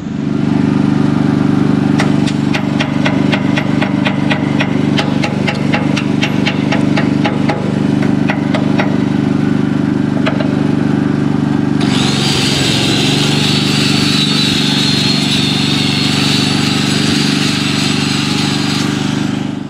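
A welder's chipping hammer taps fresh plug welds on a steel deck plate, about three strikes a second, knocking off the slag. In the second half an angle grinder runs against the welds, grinding them flat. A steady engine hum runs under both.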